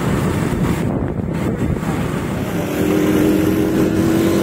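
Small motorcycle riding along a road, its engine running steadily under way with rumbling road noise. About three seconds in, a steady hum with a fixed pitch joins in.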